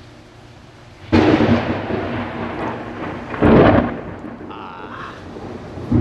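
Loud thunder: a sudden crack about a second in that rumbles on, a second louder burst at about three and a half seconds that dies away into rumbling, and another crack just at the end.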